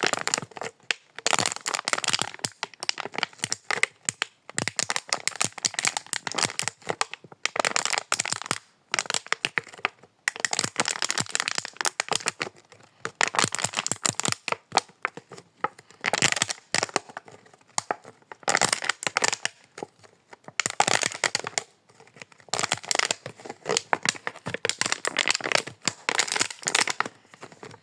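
Empty plastic bottle squeezed repeatedly by hand, crackling and popping in bursts of a second or two with short pauses between squeezes.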